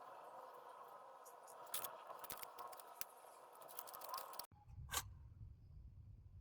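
Faint clicks and short scraping sounds of small objects being handled, several in quick succession over the first four seconds and one more about five seconds in; the background hiss switches suddenly to a low hum about four and a half seconds in.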